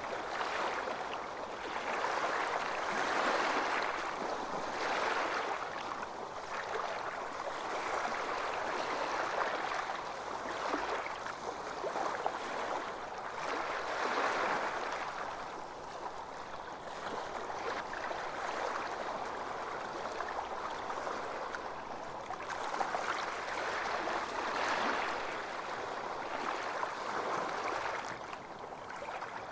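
Ocean surf washing onto a beach: a continuous wash of breaking waves that swells and eases every few seconds.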